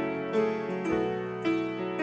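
Piano playing a slow, gentle melody, a new note struck about every half second and each ringing and fading.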